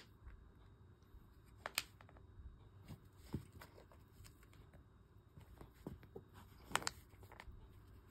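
A cat rolling on carpet and pawing at a fabric catnip toy: faint scattered rustles and scratches of fur and claws against the carpet and toy, with two louder scratches, about two seconds in and near the end.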